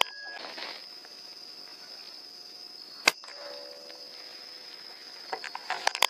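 One sharp air-rifle shot about three seconds in, over a steady high-pitched chirring of crickets.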